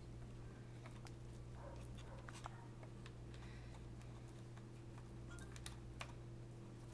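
Scattered small clicks and taps of plastic laptop parts and tools being handled during a laptop teardown, a few clustered about two and a half seconds in and around five to six seconds in, over a steady low electrical hum.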